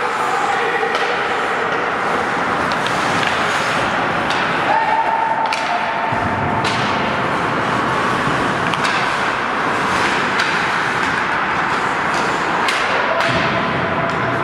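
Ice hockey play on a rink: a steady scraping hiss of skates on the ice, broken by a dozen or so sharp clacks of sticks and puck at irregular intervals. Shouts from the players ring out about five seconds in and again near the end.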